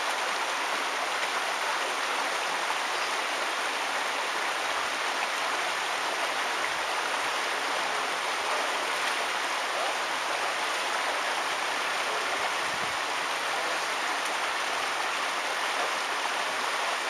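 Shallow river running over rocks and a small cascade: a steady, even rush of water.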